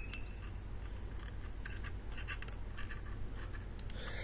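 Light, irregular metallic clicks and scrapes of bent-wire tension and picking tools working in the keyhole of a Lips lever lock, over a steady low hum. A bird chirps a couple of times at the start.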